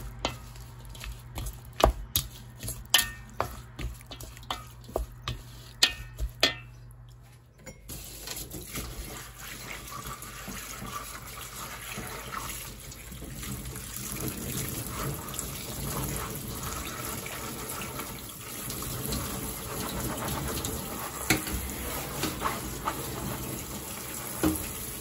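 A spoon clicking and scraping against a stainless steel bowl while tossing seasoned bellflower-root strips. After about eight seconds this gives way to tap water running steadily into a steel sink over green peas being rinsed by hand in a mesh strainer.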